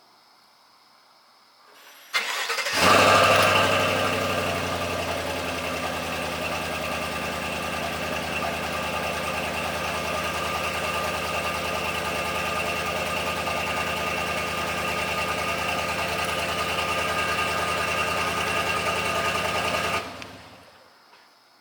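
Chevrolet Silverado's 5.3-litre V8 through its stock factory exhaust: the starter cranks about two seconds in, the engine catches with a brief rev flare, then settles into a steady idle until it is switched off near the end.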